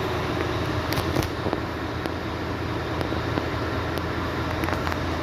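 Mercedes-Benz truck running, a steady vehicle drone with a low hum and a few light clicks.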